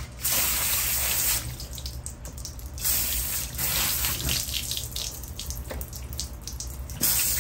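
Water from a kitchen tap running and splashing into a sink in several spurts, with small knocks between them.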